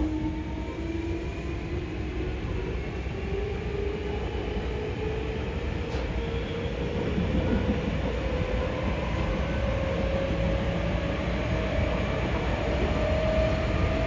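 Hankyu 5300 series resistance-controlled electric train running, heard from inside the car: a whine from the traction motors and gears climbs steadily in pitch as the train picks up speed, over a steady rumble of the wheels on the rails.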